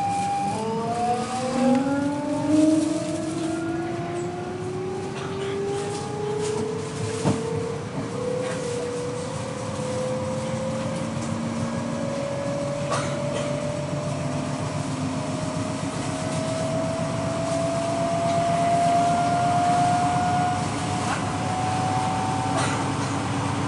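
Electric traction motors of a Copenhagen S-train whining as the train accelerates out of a station: several tones rise steadily in pitch over the rumble of wheels on rail. A few sharp clicks come through.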